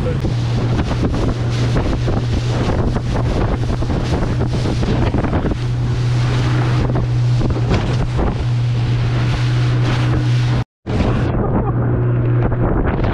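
Motorboat engine running steadily at cruising speed, a constant low hum, under heavy wind buffeting on the microphone and water rushing past the hull. The sound cuts out completely for an instant near the end.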